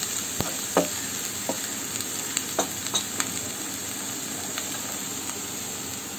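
Chopped onions, green chillies and curry leaves sizzling steadily in hot oil in a kadai, being sautéed toward brown. A wooden spatula stirs and scrapes against the pan a few times, mostly in the first half.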